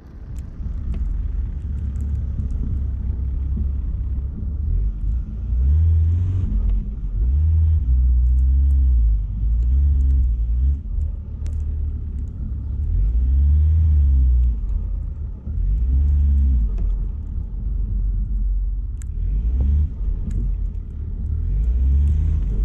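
Volkswagen T6 California 4Motion van driving through deep snow, heard from a camera mounted outside the van: a loud, heavy low rumble, with the engine note swelling up and falling back again several times.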